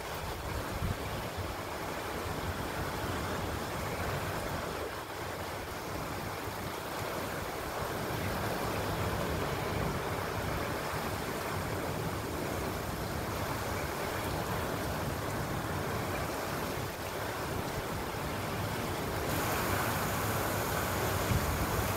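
Heavy wind-driven rain and strong storm wind in a steady rush of noise, growing louder and hissier about nineteen seconds in.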